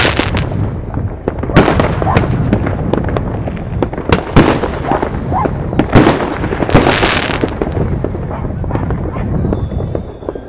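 Many fireworks going off at once: a near-continuous crackle and rattle of bangs, with heavier bangs every second or two.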